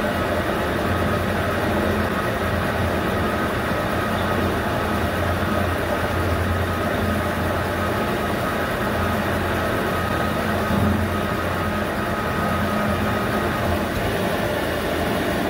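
Servo-motor-driven CD-210V 8x16 mini metal lathe taking a heavy turning cut on a metal bar: steady running and cutting noise from the spindle, drive and tool, with a thin steady whine above it.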